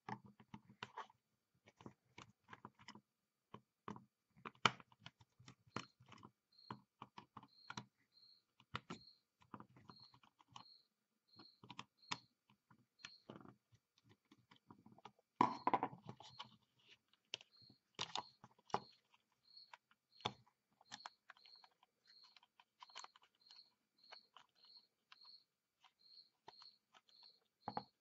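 Faint clicks and scrapes of a small screwdriver working the screw terminals on a plastic thermostat subbase as the wires are loosened and pulled out, a little busier about halfway through. A faint high chirp repeats about once or twice a second in the background from a few seconds in.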